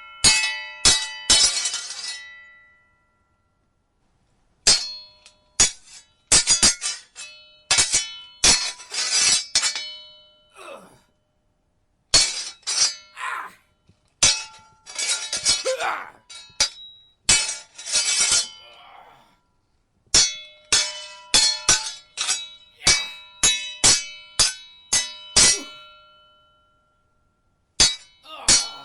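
Sword fight sound effect: steel blades clashing and ringing in rapid flurries of strikes, with short pauses between the exchanges.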